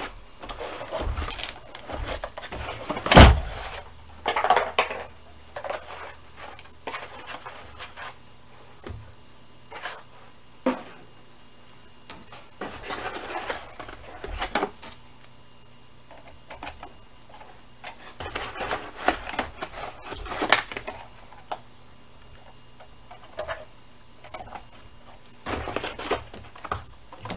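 Molded paper-pulp packaging being pulled apart from a Sizzix Big Shot die-cutting machine: scattered rustles, scrapes and knocks of handling, with one loud thump about three seconds in.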